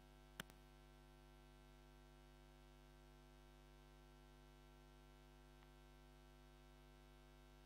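Near silence: a faint, steady electrical hum, with a short click about half a second in.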